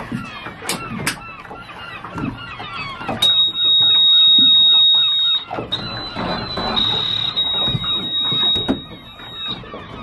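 Many short bird calls, with a steady high-pitched tone coming in about three seconds in and holding until near the end, briefly broken partway through.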